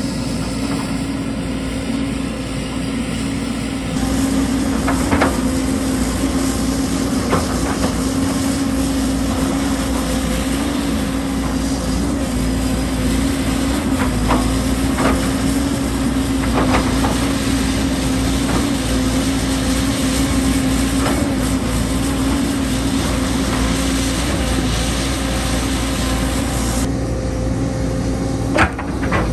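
JCB 220 Xtra tracked excavator's diesel engine running steadily under working load, with a steady hum. Sharp knocks of rock against the steel bucket and tracks come a few times, the loudest near the end.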